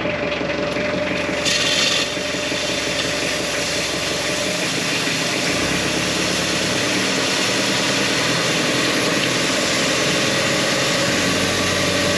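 An engine running steadily, with a constant hum and a wide hiss over it, briefly louder about one and a half seconds in.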